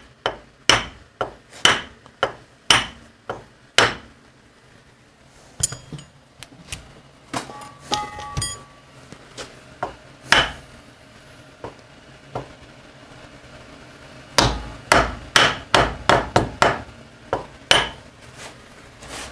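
Sharp hammer taps on a Harley-Davidson wheel hub held in a vise, with short metallic ringing, tapping the sealed wheel bearing to get it straight in the hub. About two blows a second at first, a few scattered taps, then a quicker run of blows near the end.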